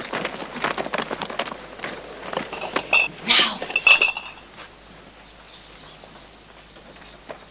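Footsteps of several people walking on a dirt yard, then, about three to four seconds in, a clatter and a few ringing clinks of glass bottles in crates being handled. After that only quiet outdoor ambience.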